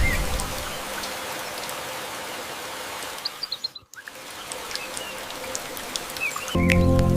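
Steady rain falling, with a few short bird chirps over it. The rain drops out briefly about four seconds in, and music with held notes comes in near the end.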